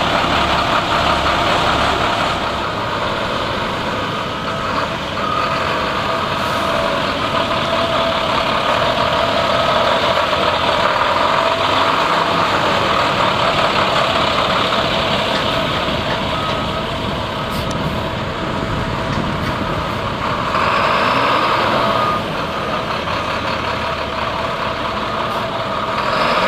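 International WorkStar single-axle dump truck's diesel engine running as the truck maneuvers at low speed. A backup alarm beeps repeatedly in the second half.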